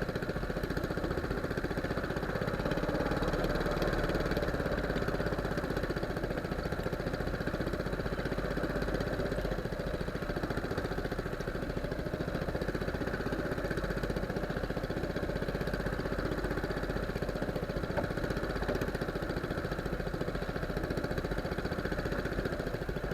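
Small fishing boat's engine running steadily at sea, with a rapid, even firing beat.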